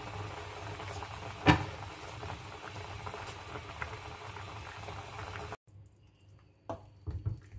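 Chicken broth boiling hard in a pot, a steady bubbling hiss, with one sharp knock about a second and a half in. The boiling cuts off abruptly after about five and a half seconds, leaving a few faint clicks.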